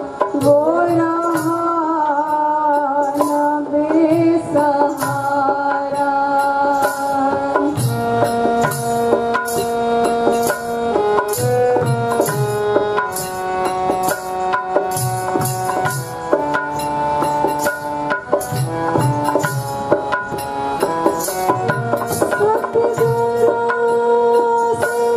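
Sikh shabad kirtan: women's voices singing to a reed harmonium, with tabla and small wooden hand clappers keeping a steady beat. The singing slides between notes for the first few seconds; after that the harmonium's held notes lead, stepping from pitch to pitch over the drum rhythm.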